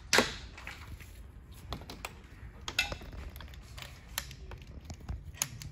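Scattered clicks, taps and light knocks of a compression-gauge hose and its fittings being handled and fitted into the engine bay. The sharpest knock comes about a quarter second in.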